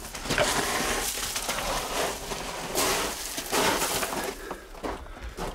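Loose rock and gravel crunching and scraping under hands and knees as someone crawls over a mine tunnel floor, with irregular scuffs and small stones shifting.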